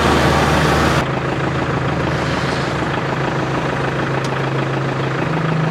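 Kubota L4701's four-cylinder diesel engine running steadily as the tractor drives. About a second in, the sound changes abruptly to a closer, steady running of the engine.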